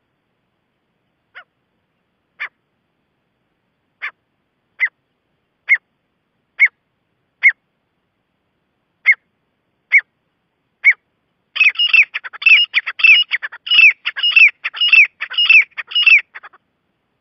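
Gray francolin calling: single sharp notes about a second apart, growing louder, then about two-thirds of the way through a fast run of repeated ringing phrases, about two a second, that breaks off shortly before the end.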